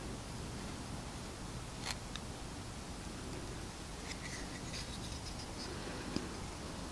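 Knife blade carving a wooden stick: a sharp click about two seconds in, then a run of short scraping cuts into the wood.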